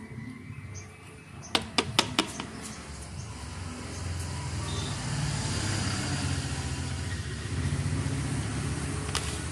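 Four quick sharp clicks about one and a half to two seconds in, over a steady low rumble that grows louder in the middle and eases near the end.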